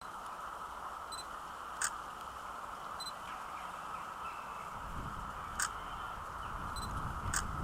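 Steady outdoor hiss broken by three sharp clicks a couple of seconds apart, with fainter ticks between them.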